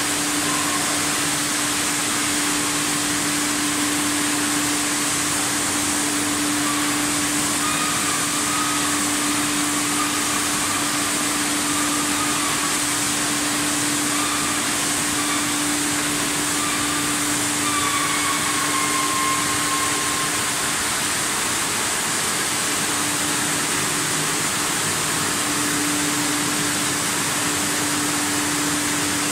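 Water bottling line machinery running: a steady mechanical hum with one constant low tone under an even high hiss.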